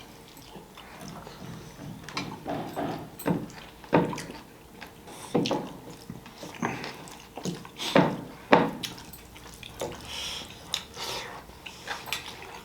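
Mouth sounds of a person eating fish curry with rice: wet chewing and lip smacks at irregular intervals.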